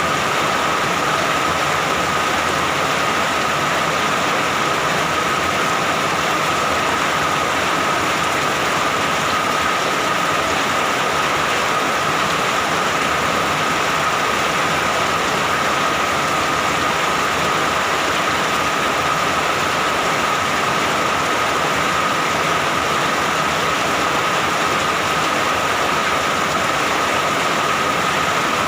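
Steady rain, an even unbroken hiss that holds at one level, with a steady tone running through it.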